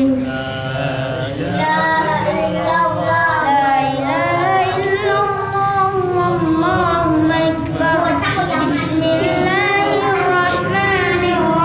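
A young boy reciting the Qur'an in melodic tilawah style, chanting long phrases with drawn-out, wavering held notes.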